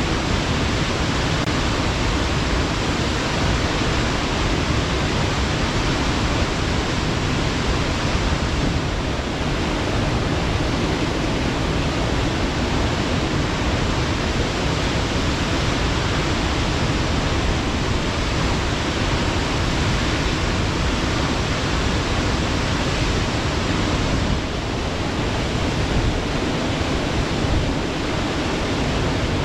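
Waterfall pouring steadily onto rocks: a constant, even rush of falling water.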